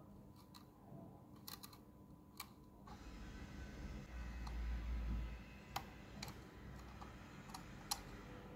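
A screwdriver and then tweezers taking small metal screws out of an old clock's plastic base: light, scattered metal clicks and scrapes, with a louder rustle and low rumble of handling about halfway.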